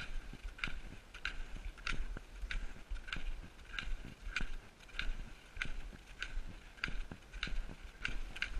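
Footsteps crunching on packed snow at a steady walking pace of about three steps every two seconds.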